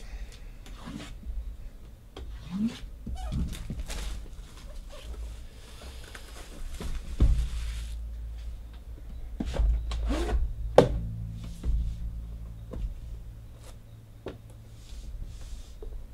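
Hands unboxing a sealed Panini Flawless card box: a knife cutting the seal, the white cardboard outer box rubbing and sliding off the aluminium briefcase inside, with scattered clicks and a few knocks. A sharp click near the end is the loudest. A steady low hum runs underneath.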